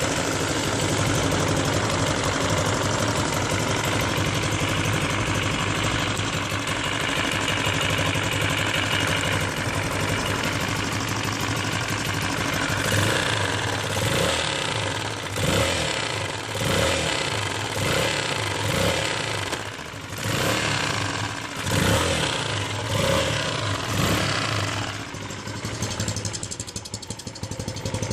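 Kasinski CRZ 150 SM's single-cylinder four-stroke engine running steadily, then given a run of quick revs about once a second before dropping back to idle near the end. It carries the strange engine noise that the owner traced to a missing spring that holds the camshaft gear shaft in place.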